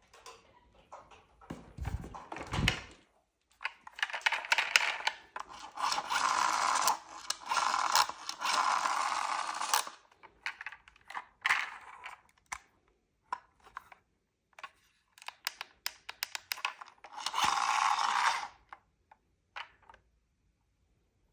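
Small toy cars being handled: a string of plastic clicks and knocks, two low thuds about two seconds in, and scraping noise that comes in stretches of one to two seconds.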